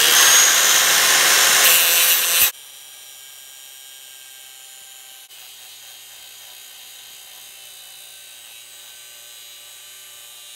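Angle grinder's abrasive disc grinding into the steel head of a sodium-filled exhaust valve clamped in a vise, loud for about two and a half seconds. It cuts off suddenly, leaving a faint steady hum.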